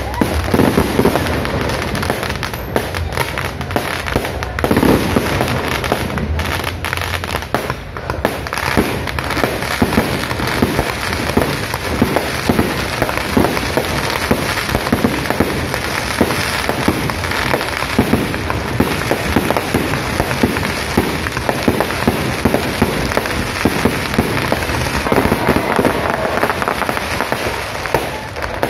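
Large fireworks display: aerial shells bursting in rapid, overlapping succession, many sharp bangs a second over continuous crackling, with no let-up.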